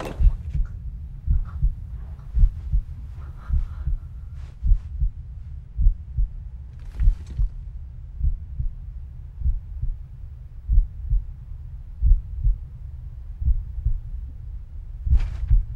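Low, steady heartbeat thumping, a little more than one beat a second, used as a suspense sound effect in a film soundtrack.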